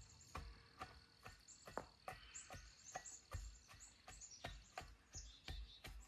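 Dull thuds about two a second from a long-handled tamping tool packing soil around the base of a wooden post. Faint bird chirps sound over them.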